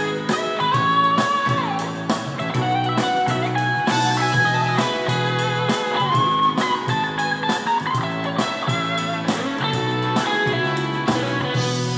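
Guitar-led rock song played back through a pair of small Canton Plus MX 2-way sealed-box speakers, a lead electric guitar bending notes over a steady rhythm. There is little deep bass.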